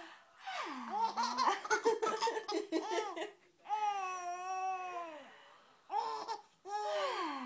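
Baby giggling in quick bursts of short laughs, with one long drawn-out vocal call about halfway and more giggles near the end.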